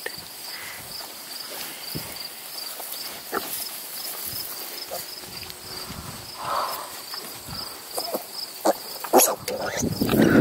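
Crickets chirping steadily in a fast, even, high-pitched pulse, about three chirps a second. A short soft sound comes about six and a half seconds in, and a few knocks come near the end.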